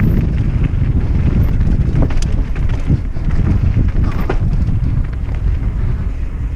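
Mountain bike riding down a trail: strong wind noise on the microphone over a steady rumble from the tyres, with a few sharp knocks and rattles from the bike about two and four seconds in.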